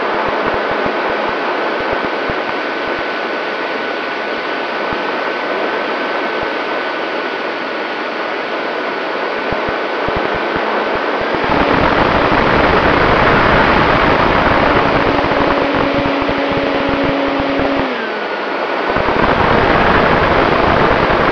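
E-flite P-51 Mustang RC plane in flight, heard from the onboard camera: a steady rush of wind over the microphone with the electric motor's high, steady whine. About eleven seconds in the rush grows louder as the motor is throttled up, and near the end the whine dips briefly and rises again.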